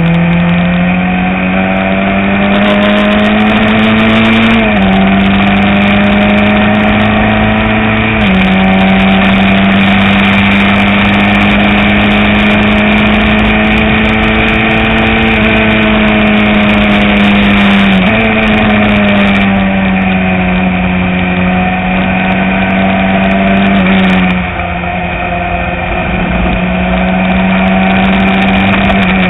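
Open-wheel single-seater race car engine heard onboard at high revs, the pitch climbing through each gear and stepping down at upshifts about 5, 8 and 18 seconds in. The note then falls gradually as the car slows, with a brief dip in loudness about 24 seconds in.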